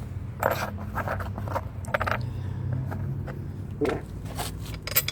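Several short scrapes and rustles from a saddlebag and its mounting hardware being handled, over a steady low hum.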